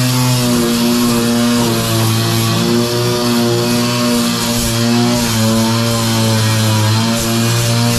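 Background rock music with sustained, distorted guitar notes that change pitch in steps every second or two.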